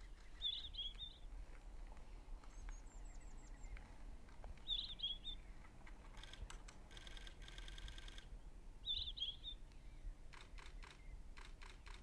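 A small songbird's short warbling phrase, faint and high, sung three times about four seconds apart over quiet forest background. A rapid run of clicks comes in the middle, and a few more clicks near the end.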